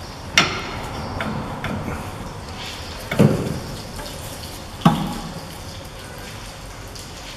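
Three sharp metal knocks, each with a short ring, and a couple of lighter clicks between the first two, as parts of a car's front hub and steering knuckle are handled.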